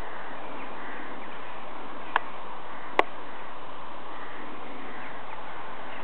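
Steady outdoor background hiss with faint bird chirps, and two sharp clicks about two and three seconds in.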